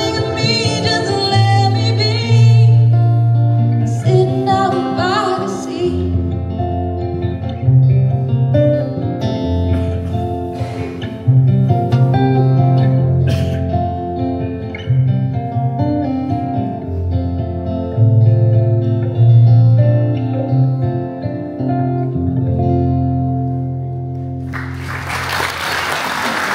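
Live blues band playing: a singer over guitar with long held bass notes. Near the end the music stops and the audience applauds.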